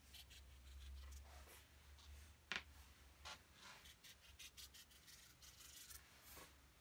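Faint scratchy dabs and short strokes of a paintbrush on watercolour paper, with one sharper tick about two and a half seconds in, over a low steady hum.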